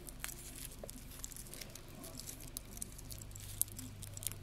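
Stainless steel watch bracelet and case handled in the fingers: faint, irregular small clicks and scratchy ticks of metal links and skin, with one sharper click about three and a half seconds in.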